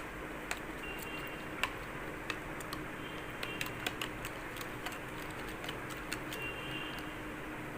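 Scattered light clicks and taps at irregular intervals, as small kitchen things are handled, over a faint steady hum.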